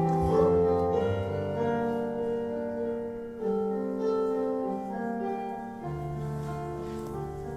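Solo piano playing slow, held chords that change about once a second.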